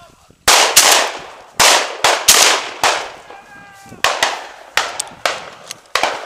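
A rapid string of shotgun shots, about ten in six seconds, from hunters firing at a flushed pheasant, each a sharp crack with a decaying echo.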